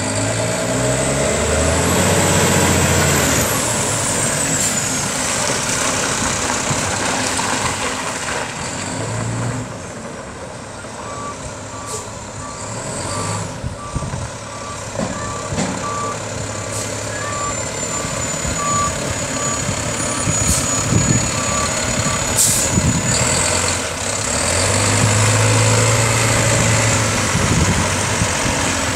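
Heavy diesel garbage-truck engines running. For about ten seconds in the middle, a truck's reversing alarm beeps steadily, about two beeps a second.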